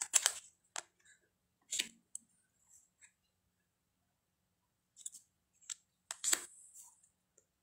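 Tarot cards being handled and flipped through by hand: a series of short, separate snaps and slides of card stock, with a quiet pause of a couple of seconds midway.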